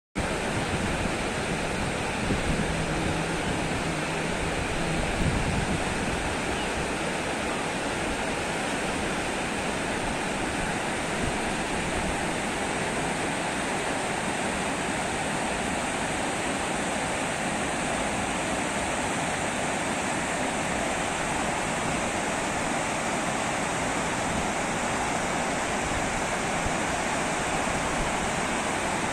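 Lidder River flowing: a steady, unbroken rush of water.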